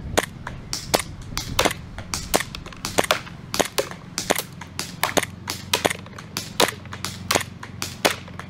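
WE Glock 18C green-gas blowback airsoft pistol fired one shot at a time at a steady pace, about one sharp crack every second or less, with fainter ticks between the shots.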